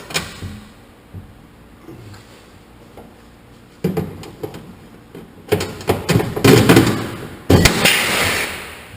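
Knocks and metal clatter of tools and fastener parts being handled against a truck cab, ending in a loud sudden noise that fades away over about a second and a half.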